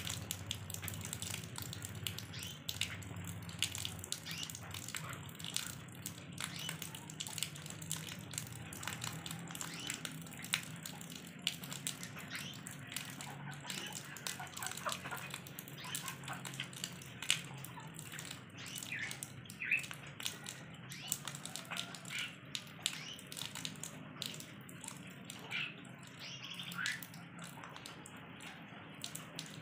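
Rainwater pouring in a thin stream into a shallow puddle, splashing and gurgling steadily, with many small drop splashes.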